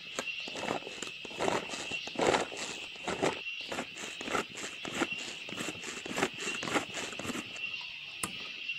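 A run of short knocks and scrapes, about two a second, from a plastic hand food chopper being worked and emptied of crushed small onion, garlic, chili and coconut. A steady high whine sits under it.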